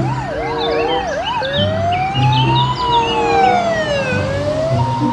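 Electronic siren wailing: a quick up-and-down wail of about two cycles a second, changing about a second and a half in to a slow wail that rises and falls once over some three seconds.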